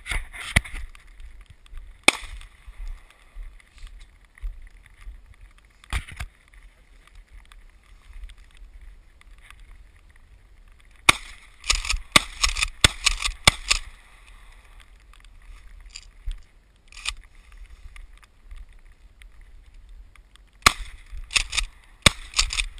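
Shotgun firing: single sharp shots about two and six seconds in, then quick strings of shots and clacks around the middle and again near the end.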